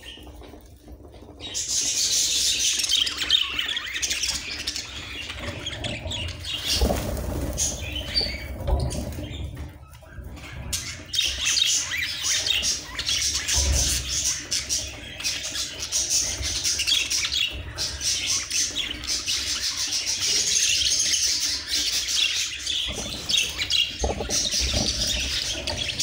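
A crowded flock of budgerigars chattering and chirping without a break, starting about a second and a half in and easing briefly near the middle. A few low bumps sound among the chatter.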